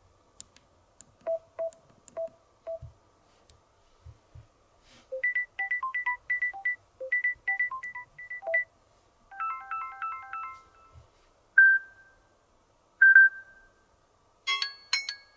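Samsung Galaxy A13 phone speaker playing short previews of its built-in tones one after another: electronic beeps, a quick melody of notes, chimes and two single decaying tones, each stopping before the next begins, with faint taps in between.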